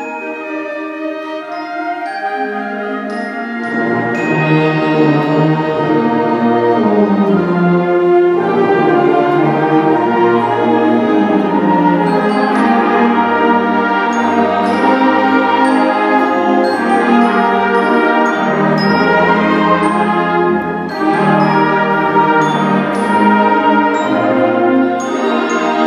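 School symphonic band playing live: woodwinds and brass with mallet percussion. It begins lighter and higher, then the low instruments come in about four seconds in and the full band plays louder, easing off briefly near the end.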